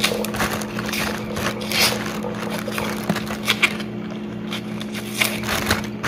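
Clicks, knocks and short scrapes of kitchen handling as a tomato, a plate and a knife are picked up and set down on the counter, over a steady low machine hum.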